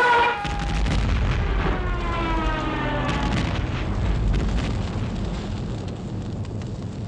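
Dive-bomber sound effect: a diving warplane's falling whine cuts off just after the start, then a heavy explosion rumbles on. A second falling whine sounds over the rumble about two to three seconds in, and the rumble slowly fades.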